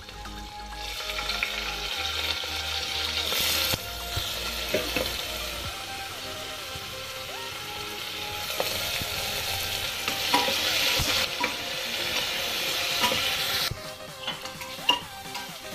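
Chopped onions sizzling in hot oil in a pressure cooker, stirred with a steel ladle that clinks and scrapes against the pot. The sizzle swells about a second in and drops away near the end.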